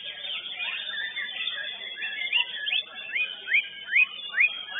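White-rumped shama (murai batu) singing a fast, varied song of clear whistled notes; in the second half it repeats short rising whistles in quick succession, about two or three a second.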